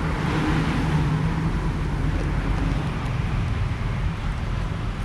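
Steady background rumble like road traffic, with a hiss that is a little stronger in the first couple of seconds.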